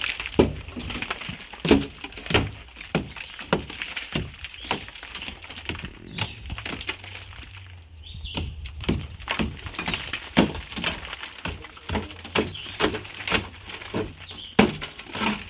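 Repeated irregular strikes of a hand tool chipping into a dried cob (earthen clay) wall, with chunks cracking and crumbling away, roughly one or two hits a second and a short pause partway through.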